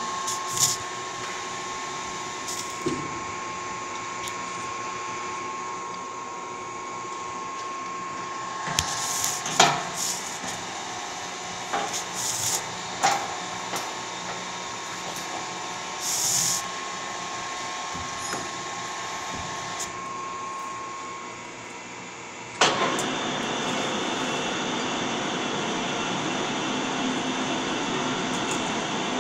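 Metal lathe: a steady machine-shop hum with scattered metal clanks and knocks as the large workpiece is handled at the chuck, then a little over two-thirds of the way through a sudden change to a louder, even running noise as the lathe turns and cuts the metal piece.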